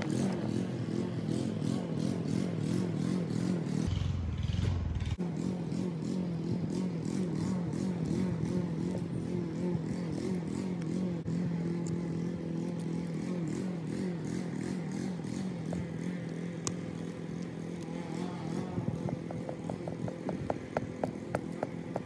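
An engine running steadily, a low even hum throughout, with a quick run of light clicks near the end.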